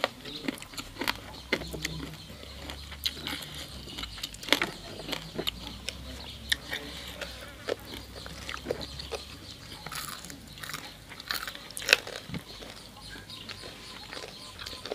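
Close-up mouth sounds of people eating: chewing and biting, with scattered short crunches and clicks.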